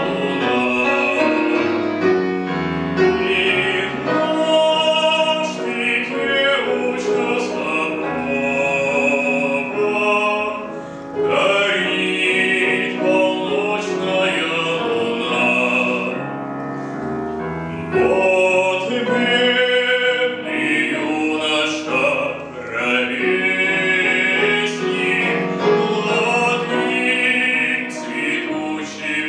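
A male classical voice singing a slow Russian folk song in operatic style with heavy vibrato, accompanied by piano. The voice drops out briefly about two-thirds of the way through while the piano carries on.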